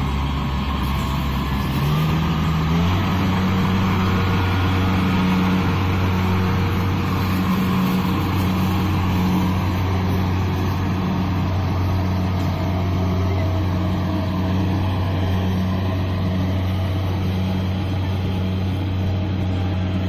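Kubota DC-70 combine harvester's diesel engine running under load while it cuts and threshes rice. Its pitch steps up twice, about two and three seconds in, as it revs up, then holds steady over the whirring of the cutting and threshing gear.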